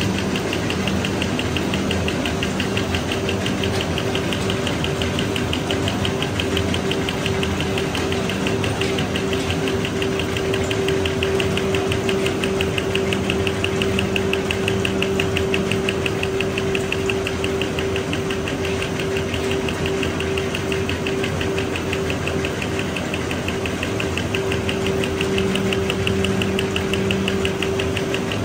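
Drinking-straw making machine running steadily, with a constant hum and a fast, even mechanical ticking.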